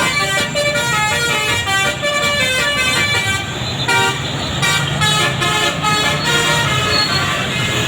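Bus's basuri 'telolet' musical air horn playing a quick tune of short stepped notes over the bus engine's low rumble; the tune thins out about halfway through to a few scattered notes while the engine keeps running.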